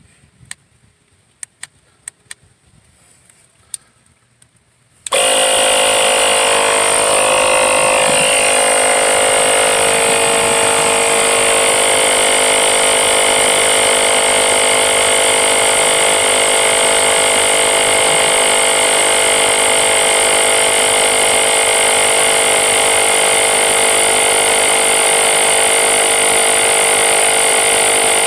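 A few sharp clicks, then about five seconds in a cordless 20-volt tire inflator's compressor starts abruptly and runs steadily and loudly with an even whine, pumping a bus tire up toward 105 PSI.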